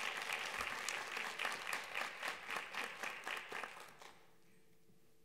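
A small audience applauding, with individual claps standing out. The applause dies away about four seconds in, leaving a faint steady hum.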